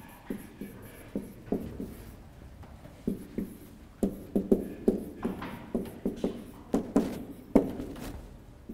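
Whiteboard marker writing a line of text: a quick, irregular run of short taps and scratches as the letters are stroked onto the board.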